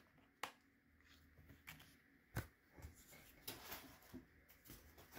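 Faint handling of a Pokémon card three-pack blister: two sharp clicks of the plastic blister shell and card backing, about half a second in and again near the middle, then soft rustling as the pieces are set down.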